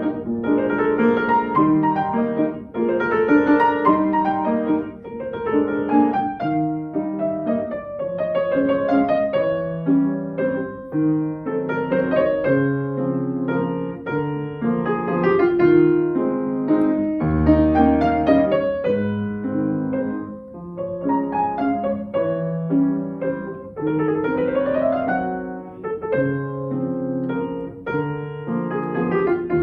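Solo piano playing a classical piece, with a falling run of notes about a quarter of the way in and a quick rising run near the end.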